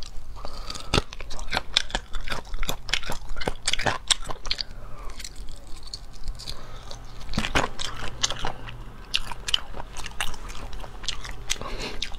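Close-miked biting and chewing of braised chicken feet, with frequent sharp, irregular clicks and crunches of skin and cartilage.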